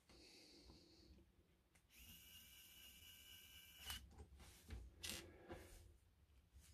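Near silence, with faint small clicks and a faint hiss lasting about two seconds.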